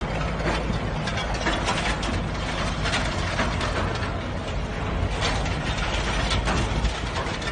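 Semi-truck hauling a shipping container, running close by with a steady low engine rumble under dense rattling and clanking from the chassis and container as it bounces through potholes.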